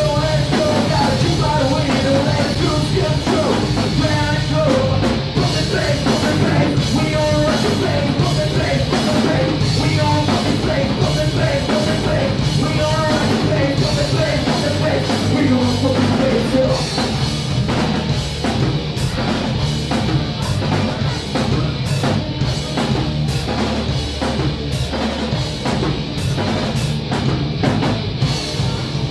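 Rock band playing live: distorted electric guitars, bass and a drum kit, with a singer's voice over them in the first half. Past the middle the singing drops away and the drums and cymbals come to the fore.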